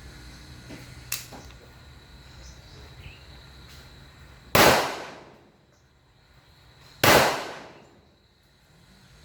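Two loud gunshots about two and a half seconds apart, each fading over about a second. A fainter sharp crack comes about a second in.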